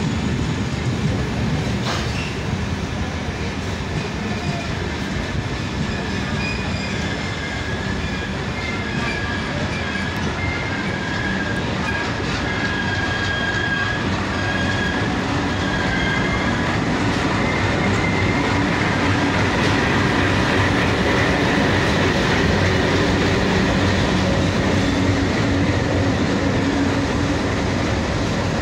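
Indian Railways passenger train's red-and-grey LHB coaches rolling slowly alongside the platform, a steady rumble and clatter of wheels over the rails. A thin, high-pitched wheel squeal comes and goes through the middle stretch, and the rumble grows a little louder in the second half.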